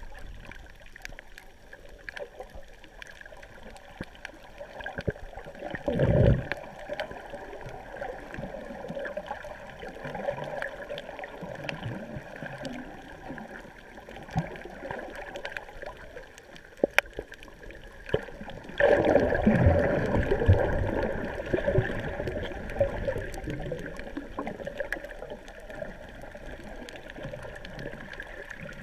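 Muffled underwater water noise heard through a submerged camera: a steady swirling, gurgling wash. A brief louder surge comes about six seconds in, and a louder, longer rush of water starts about two-thirds of the way through and eases off over a few seconds.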